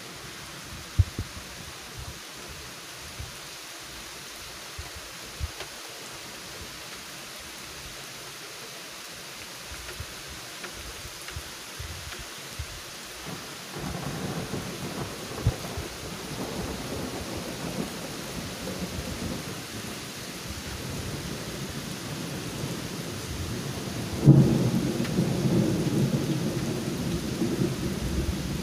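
Steady rain hiss with rolling thunder. The rumble builds about halfway through, and a louder thunderclap breaks in near the end and rumbles on.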